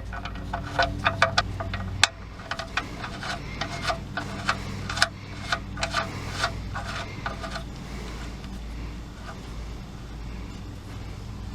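Irregular sharp metallic clicks, two to four a second, as the 13 mm drain bolt goes back into the oil pan; they stop about seven and a half seconds in, leaving a low steady hum.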